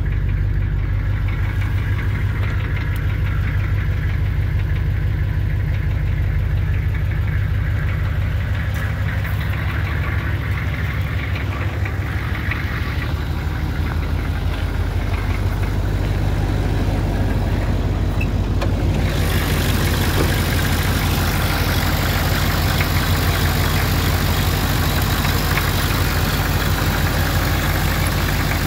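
Oldsmobile 5.7-litre (350) diesel V8 idling steadily with an even, rapid clatter. About two-thirds of the way in, the sound turns clearer and brighter as the engine is opened up to the air under the raised hood.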